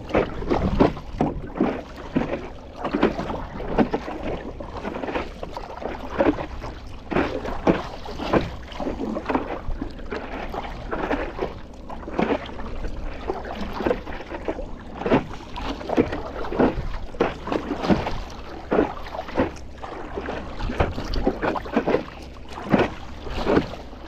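Paddle strokes splashing and water slapping against a stand-up paddleboard, in short irregular splashes, over a low wind rumble on the microphone.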